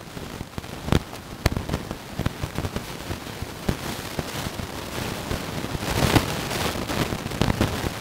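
Rustling and crackling as the dogs scramble through the garden plants and grass, with sharp irregular clicks, busiest about six seconds in.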